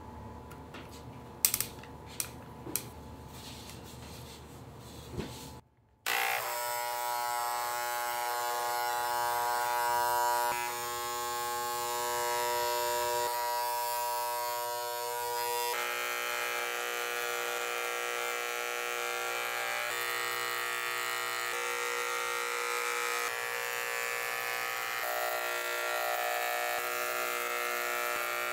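Handheld electric paint sprayer buzzing steadily as it sprays a coating onto cakes, starting about six seconds in after a few light clicks.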